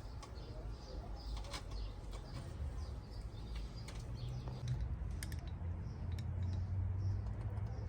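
Outdoor background with a low steady rumble, faint bird chirps and a few light clicks.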